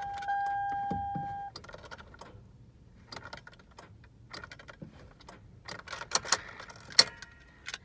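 A car's dashboard warning chime sounds a steady ding and cuts off about one and a half seconds in. Scattered faint clicks and rattles of keys and the ignition switch follow, with one sharper click near the end. The engine does not crank or run.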